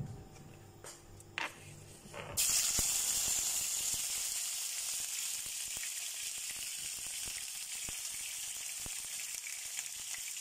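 Sliced red onions frying in hot oil in a frying pan: after a quiet start with a faint click, a sudden sizzle begins about two seconds in as the onions hit the oil and carries on steadily, with small pops crackling through it.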